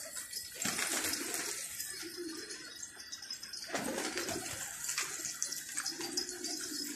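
Wind rushing over the microphone outdoors, a noisy hiss with two stronger gusts, one just under a second in and one near four seconds.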